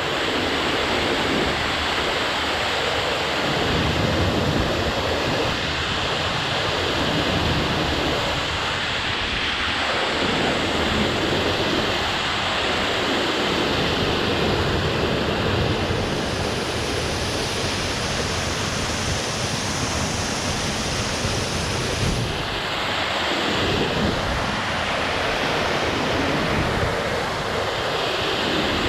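Steady rush of a waterfall, with wind buffeting the microphone now and then.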